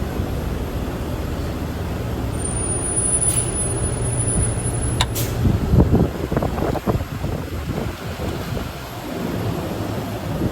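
PACCAR heavy truck drivetrain running with a steady low hum, then a cluster of irregular knocks and rattles about six seconds in, the kind of grinding noise the transmission is being checked for.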